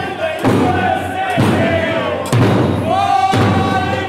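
Music with a strong drum beat about once a second under a high melody of held, slightly bending notes.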